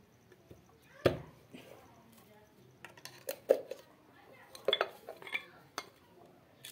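Hard metal and plastic parts of an electric fan clinking and knocking as it is handled and opened up: a handful of irregular sharp strikes, the loudest about a second in and about three and a half seconds in.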